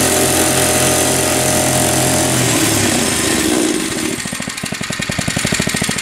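Small plate compactor's engine running steadily at speed, then throttled down about two and a half seconds in to a slow, rhythmic idle.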